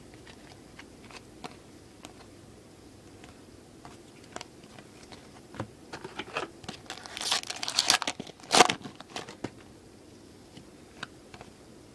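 Baseball trading cards being handled with scattered small clicks and taps, then a burst of crinkling and tearing from a foil card-pack wrapper, loudest about eight and a half seconds in.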